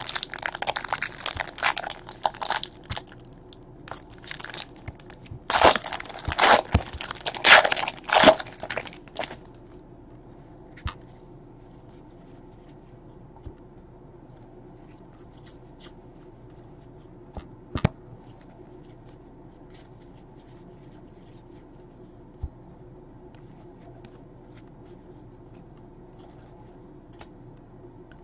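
A trading-card pack wrapper crinkling and tearing open in two bouts during the first nine seconds or so, loudest around seven to eight seconds in. After that there are only a few faint clicks of cards being handled.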